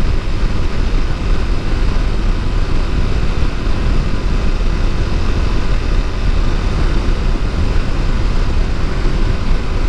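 Honda CBR250R's single-cylinder engine running at a steady cruise, mixed with heavy wind rumble on the microphone.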